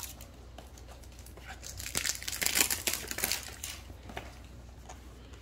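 Packaging crinkling as it is unwrapped by hand, busiest from about two to three and a half seconds in.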